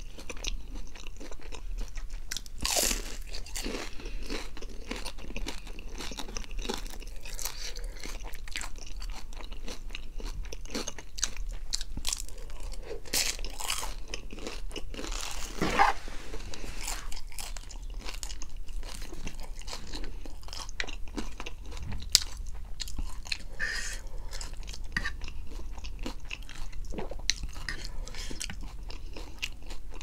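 Close-miked eating: a person biting and chewing fried food, many short crunchy sounds in an uneven stream, with one sharp click a little past the middle.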